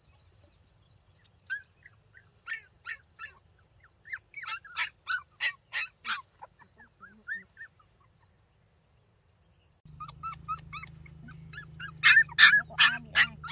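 Puppies whimpering and yelping in runs of short high-pitched cries, about three a second, with a louder run near the end.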